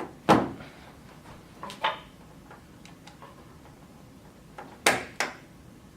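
Computer case front cover and drive-bay part clicking and knocking as they are handled and snapped into place: a sharp click about a third of a second in, a softer one near two seconds, and two more close together near the end.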